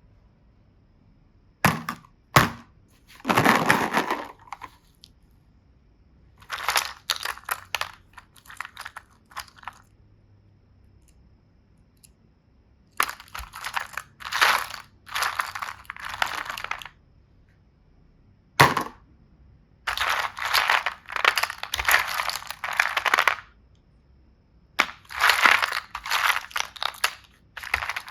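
Repeated bursts of crunching and crackling, something being crushed or broken apart, with short pauses between the bursts.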